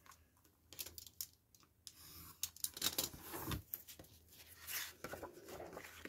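Paper and a clear acrylic ruler being handled on a cutting mat: a few light clicks about a second in, then the paper scraping and rustling as it is lifted and moved.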